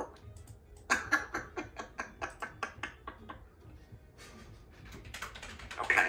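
Congo African grey parrot making a rapid series of clicks, about eight a second, for a couple of seconds, then a loud pitched call near the end.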